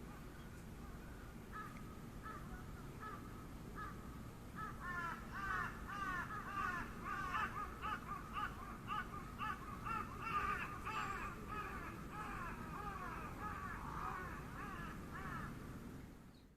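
Birds calling: a few short, spaced calls at first, then a quick run of many repeated arching calls that overlap as if from several birds, easing off near the end.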